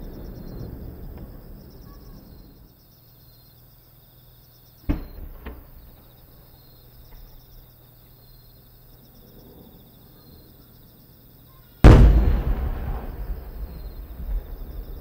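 Aerial fireworks shells: the rumble of a burst dies away, a sharp bang comes about five seconds in with a smaller one just after, then a much louder shell bursts about twelve seconds in and its boom echoes away slowly. Crickets chirp steadily underneath.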